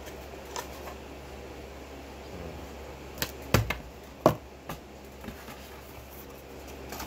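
A few sharp clicks and knocks from handling the box, cables and paper inserts while unpacking a webcam, bunched together between about three and five seconds in, over a steady low hum.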